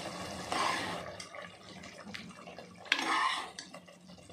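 A steel ladle scoops thick, wet mashed ridge gourd from a metal pot into a steel bowl: soft wet plops and scrapes, with one sharp metal clink about three seconds in.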